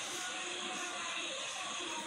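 Steady background hiss in a pause between spoken sentences, with faint, indistinct low sounds underneath.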